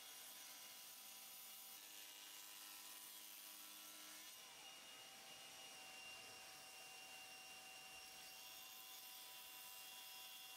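Near silence: a faint steady hiss with a few thin, high whining tones.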